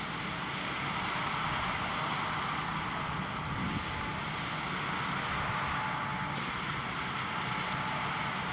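Potato harvesting machinery running steadily, a continuous engine rumble and mechanical hiss.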